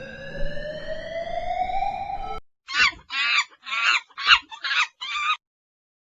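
A long, smoothly rising tone with overtones, then six quick squawking clucks of a chicken in a row.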